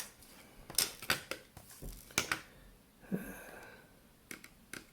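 Scattered sharp clicks and taps from handling a cheap, partly dismantled Vivitar T027 digital camera and working its parts. A brief, more drawn-out sound comes a little after three seconds in.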